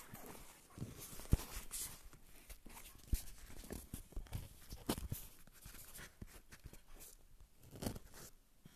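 Handling noise from a smartphone being set up and propped in place, close to its own microphone: scattered knocks and taps with rubbing and rustling in between.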